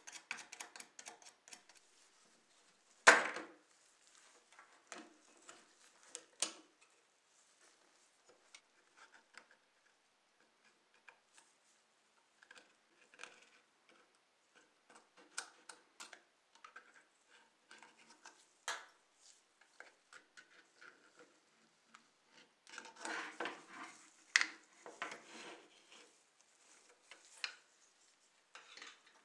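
Small metal pick scraping and picking caked dirt off a model car's metal body, in scattered light clicks and scratches. A sharp tap about three seconds in is the loudest sound, and a denser run of scraping comes near the end.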